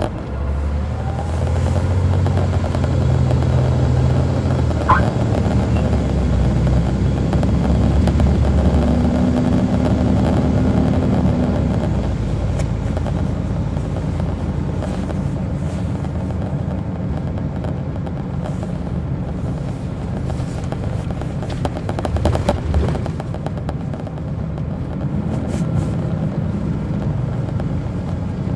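Caterpillar C13 ACERT diesel engine of an MCI D4500CL coach, heard from inside the bus while it is under way. The engine note climbs, then drops a little before halfway as the Allison automatic transmission shifts. A brief rattling clatter comes about three-quarters of the way through.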